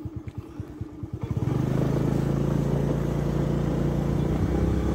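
Engine of the road vehicle carrying the camera, with slow, even pulses at first. About a second and a half in it picks up into a louder, steady drone under a rushing noise as the vehicle gathers speed.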